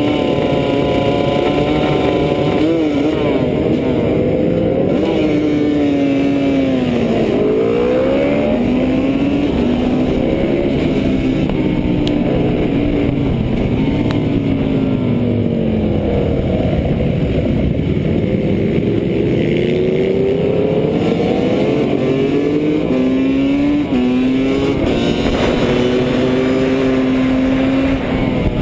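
Husqvarna WR300 two-stroke 300cc engine heard onboard at racing speed, its pitch climbing and dropping again and again as the rider accelerates up through the gears and backs off into corners.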